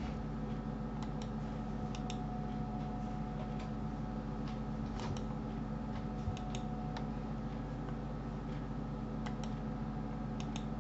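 Computer mouse clicking: short sharp clicks, mostly in quick pairs, scattered a few seconds apart, over a steady low electrical hum.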